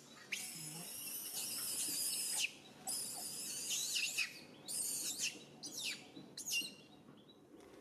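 High-pitched squealing animal calls, thin and whistle-like with pitch sliding mostly downward, coming in several bursts with short breaks and thinning out near the end.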